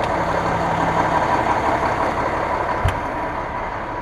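Fire engine idling steadily, with a single low thump about three seconds in.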